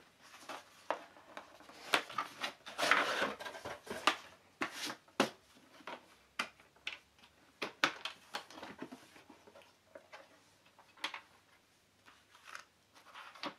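Packaging being handled: rustling of shredded paper and cardboard, with a denser burst of rustling a few seconds in, and many irregular sharp clicks and knocks as a product box and a hard plastic carry case are handled and the case is opened.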